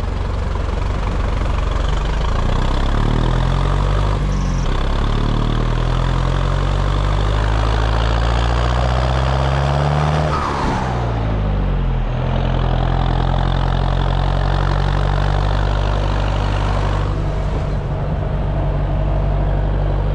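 Farm diesel engine running, revving up gradually for about seven seconds, then dropping back quickly about halfway through and running steadily again.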